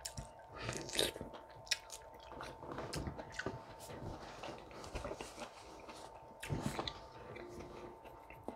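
A person chewing and biting food close to the microphone, with irregular wet mouth clicks and crackles.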